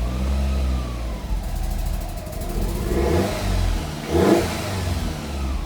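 Fiat Coupé 16V Turbo's 2.0-litre turbocharged four-cylinder engine idling roughly, its pitch wavering and sagging as if about to stall. Two louder, harsher puffs come about three and four seconds in, from an exhaust leak.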